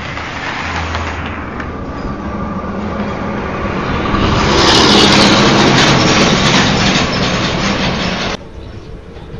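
Road traffic driving past close by: a car and then a heavy container semi-truck, the engine and tyre noise swelling to its loudest about five seconds in, then cutting off abruptly near the end.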